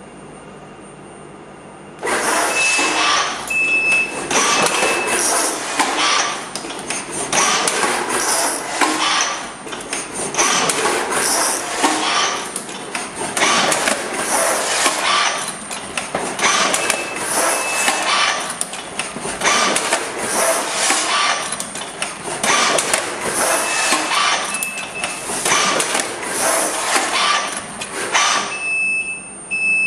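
Automatic edge lining machine for lever arch files running on glossy paper: a loud, dense mechanical clatter with a quick run of knocks and short high-pitched tones. It starts suddenly about two seconds in and stops near the end.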